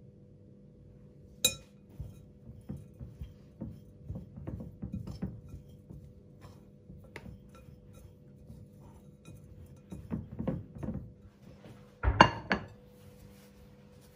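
Dishes, glasses and cutlery clinking as they are handled, with one sharp clink about a second and a half in and a louder run of clinks near the end.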